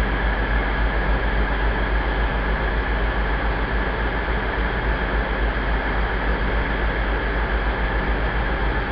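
Class 66 diesel freight locomotive approaching, its two-stroke engine heard as a steady rumble and hiss with a faint steady high tone.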